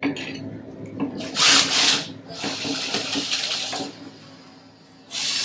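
Two 9/16 wrenches working double nuts on a threaded steel rod, locking them together: metal scraping and clinking in three bursts, the last one short near the end.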